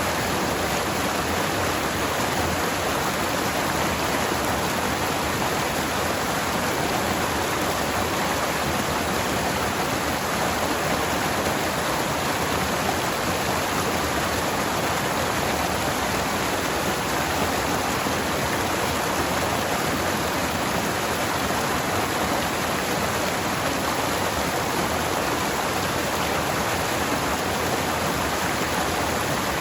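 Forest stream flowing over rocks, a steady rushing of water with no breaks.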